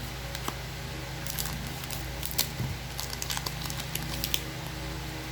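Trading cards being handled and flipped through, with light clicks and slides in small clusters over a steady low hum.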